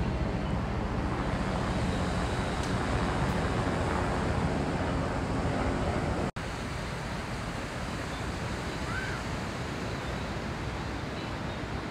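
Steady seaside noise of surf and wind, broken by a momentary dropout about six seconds in, after which it carries on slightly quieter.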